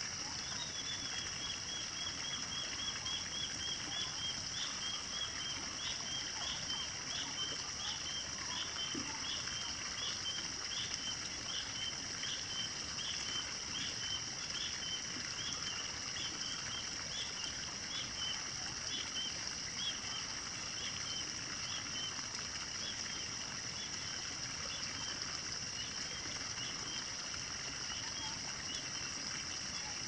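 Rural morning ambience: a bird repeats a short high call about twice a second, steadily for most of the stretch and thinning out near the end, over a steady high-pitched drone and a soft background hiss.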